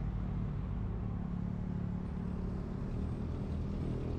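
Steady low rumble of a diesel train, with a constant low engine hum underneath.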